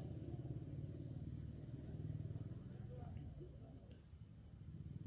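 Cricket chirping steadily in the background, a fast, even high-pitched pulse, over a low hum.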